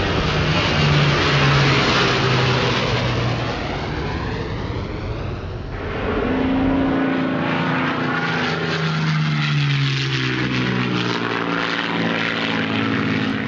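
Propeller airplane engine droning as the plane flies past, its pitch shifting, with an abrupt cut to another engine passage about six seconds in.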